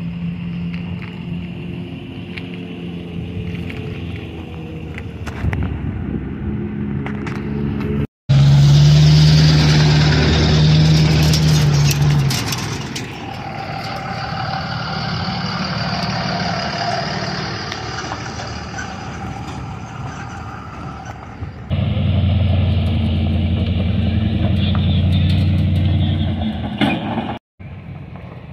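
Pickup trucks towing flatbed trailers loaded with demolition derby cars drive slowly past, engines running. The loudest and closest pass comes about a third of the way in.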